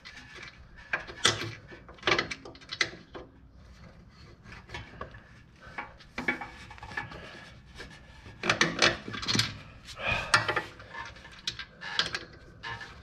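Pliers gripping and bending a nail through a wheel axle hole, a nail standing in for a missing cotter pin: irregular metal clicks and scrapes, busiest about a second in and again from about eight to eleven seconds.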